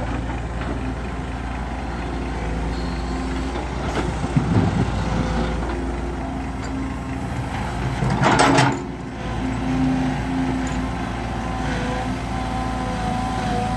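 Hydraulic excavator's diesel engine running steadily under load as it digs and swings, its pitch shifting with the hydraulic work. About four seconds in, soil and rocks drop into the dump truck's steel bed. A loud, short rush of noise comes just past the middle.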